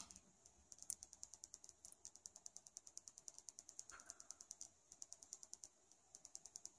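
Near silence with a faint, rapid high-pitched ticking, about nine ticks a second, that stops briefly a few times.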